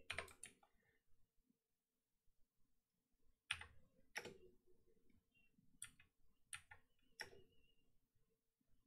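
Faint computer keyboard keystrokes: a quick run of keys at the start, then five single strokes spread out over the next few seconds.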